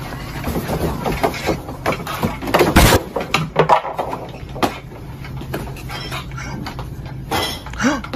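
Boxes and merchandise knocked off store shelves, clattering and thudding onto the floor in a run of separate knocks, with one loud crash about three seconds in. A steady low hum runs underneath.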